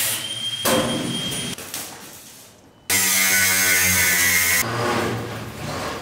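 Angle grinder grinding steel in two loud bursts, each followed by a short spin-down.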